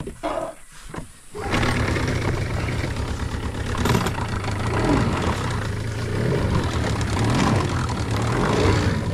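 A canoe's motor starts after a few knocks about one and a half seconds in, then runs steadily with an even low throb.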